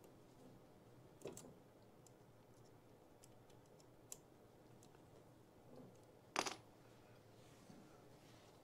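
Near silence broken by a few small clicks and taps as a ring is worked loose on the end of a foosball rod, the loudest a single sharp click about six seconds in.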